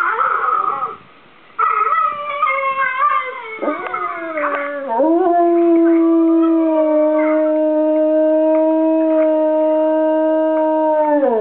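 Dog howling: a short high cry, then after a brief pause a wavering howl that slides down in pitch and settles into one long, steady note for about six seconds, dropping away at the end.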